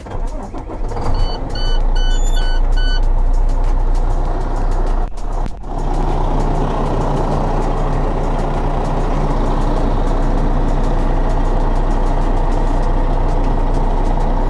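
International MaxxForce 13 inline-six diesel starting up and then idling steadily, with a run of about six short electronic beeps about a second in. The engine sound drops out briefly about five seconds in, then carries on at a steady idle.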